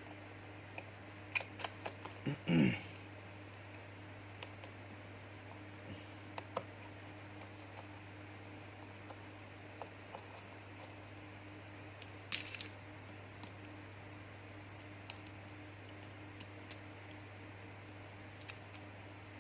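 Scattered small clicks and taps of tools and phone parts being handled during disassembly, with a louder clatter about two and a half seconds in and another around twelve seconds, over a steady mains hum.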